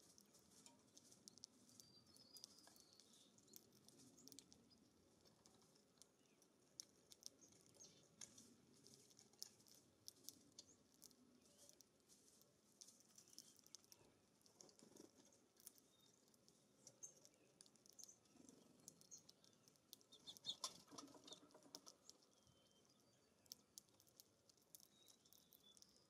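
Faint, irregular clicking of house finches pecking and cracking seed at wire and tube feeders, with scattered soft high chirps; the clicking is busiest about twenty seconds in.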